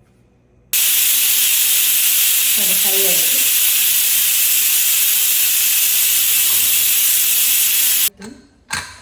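Pressure cooker venting steam: a loud, steady hiss that starts suddenly about a second in and cuts off abruptly near the end, followed by a few knocks.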